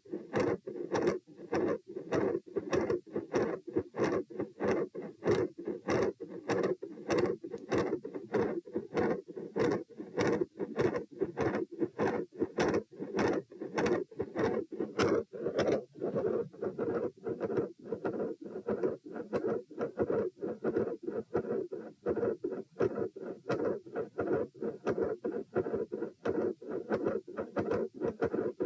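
Human heart sounds heard through a stethoscope at the pulmonic (P) listening point: a fast, regular lub-dub beat, about four sounds a second, over a steady low rumble. About halfway through, the beats turn duller.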